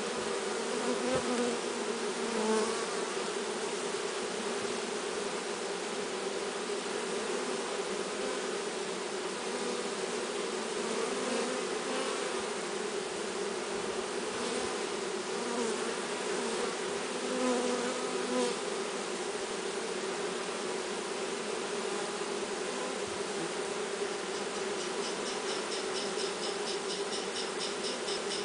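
A swarm of honeybees buzzing: a dense, steady hum of many wingbeats, swelling slightly now and then.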